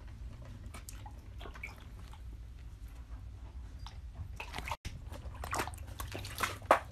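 A pet mink splashing and paddling in shallow water in a kiddie pool, with small splashes and sloshing. The splashes get louder over the last couple of seconds, the loudest near the end. A low steady hum lies underneath.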